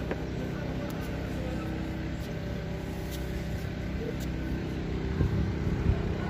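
A steady low mechanical hum, engine-like, with a few low thumps near the end.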